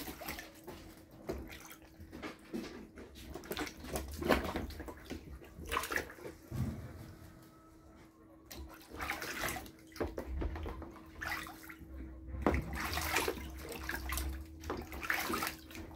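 Geese splashing and dabbling with their bills in a shallow tub of water, in irregular bursts of splashes and drips, over a faint steady hum.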